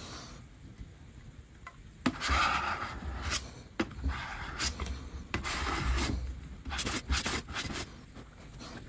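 Metal squeegee scraping solder paste across a metal PCB stencil in a series of strokes. The strokes begin about two seconds in.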